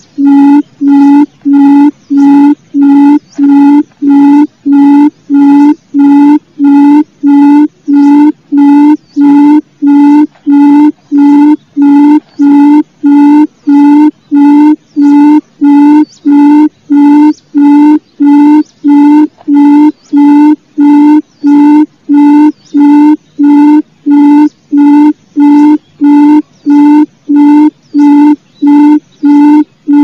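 Barred buttonquail (gemek), the female's low hooting call: one short trilled hoot repeated evenly about one and a half times a second, loud and unvarying, the kind of call played to lure quail.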